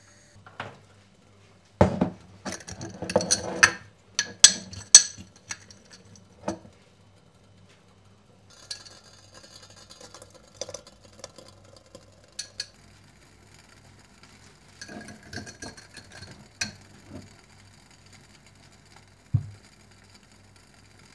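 Glassware and dishes being handled: sharp clinks and knocks in clusters, loudest about two to five seconds in, then lighter clinking, and one dull low thump near the end.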